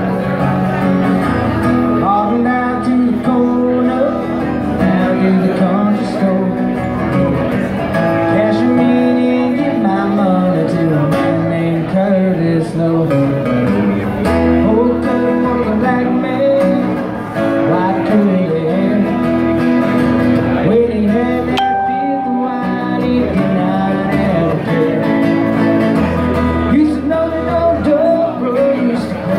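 A man singing and strumming an acoustic guitar in a live solo performance, steady throughout.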